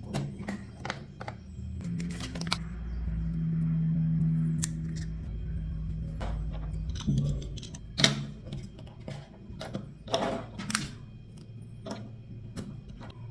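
Clicks, taps and rustles of a plastic toy and its packaging being handled, with a low steady hum from about two to seven seconds in.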